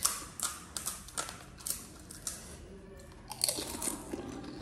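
Crisp pani puri shells crunching as they are bitten and chewed, a series of sharp crunches about twice a second with a denser run of crunches about three and a half seconds in.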